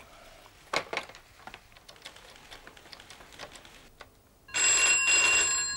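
Desk telephone bell ringing in one burst of just over a second, about three-quarters of the way in, its tones ringing on briefly as it dies away. Before it, a few faint clicks.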